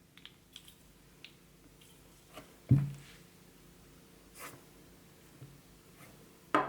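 Quiet handling of small plastic toy pieces: a few faint clicks and one short low thump about three seconds in, then a louder rustle starting just before the end.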